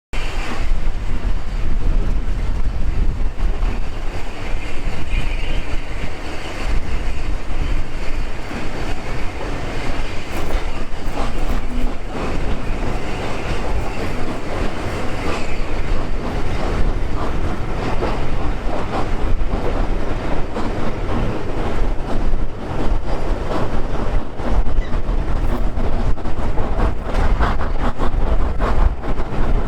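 A steam-hauled train running by with a steady heavy rumble, the clatter of its wheels over the rail joints growing denser in the second half.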